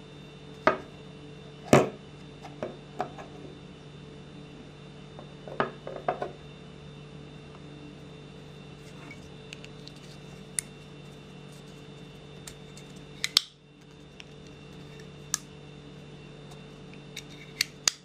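Sanrenmu GB-704 folding knife being worked by hand, its steel blade snapping open and shut in about a dozen sharp metallic clicks spread irregularly, the loudest about two seconds in.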